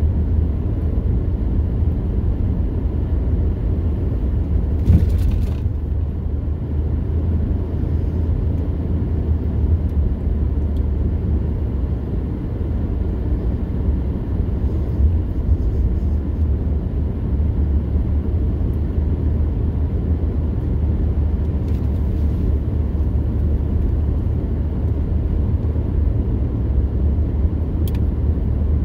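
A truck being driven, with a steady low rumble of engine and road noise. A brief thump comes about five seconds in.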